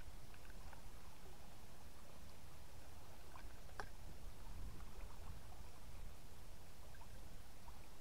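A river in flood flowing and swirling past the bank, with water lapping at the edge, over a steady low rumble and a few faint ticks, one sharper about halfway through.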